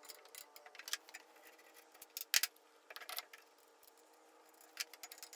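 Scattered metal clinks and clacks as the parts of a table saw's steel-and-aluminium folding stand are handled during assembly, the loudest a little over two seconds in.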